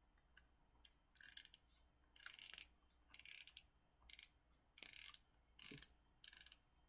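Faint, rhythmic scraping of a clothes iron rubbed back and forth over parchment paper on a t-shirt, a short rasp roughly every second with quiet gaps between.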